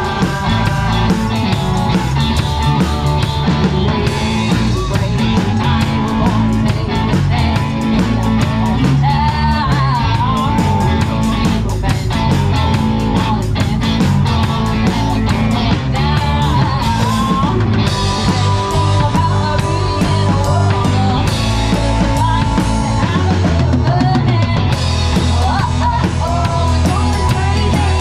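Live rock band playing: drum kit, electric and acoustic guitars, bass and a lead singer, with the drums close and prominent. Cymbals and drums come in strongly about four seconds in and keep a steady beat.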